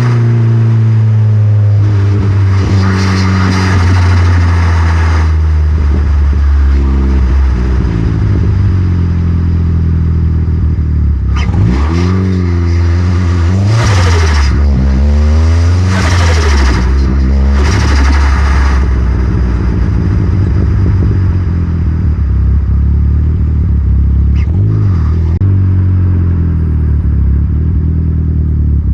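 Vauxhall Astra VXR's turbocharged four-cylinder engine driving. The revs fall at first, then rise and fall again in two bursts of acceleration, about twelve and sixteen seconds in, each with a rushing hiss. It settles into a steady cruise.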